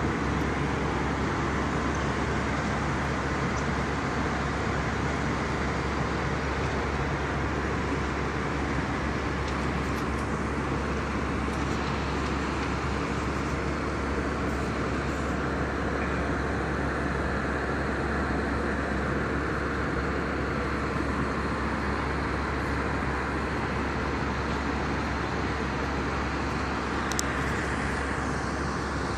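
Steady drone inside a passenger airliner cabin in flight: engine and airflow noise with a constant low hum, unchanging throughout. A single brief click sounds near the end.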